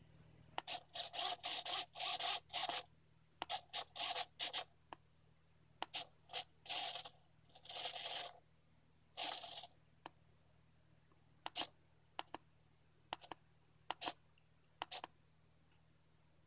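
Two TowerPro SG90 9 g micro servos whirring in short stop-start bursts as their gear motors swing the horns back and forth. The bursts come in quick clusters at first, then as sparser single moves later on.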